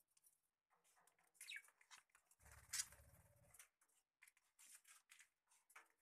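Faint budgerigar chirps and scratchy chatter, including a short falling chirp. About halfway through there is a brief low rumble with a sharp click, the loudest sound.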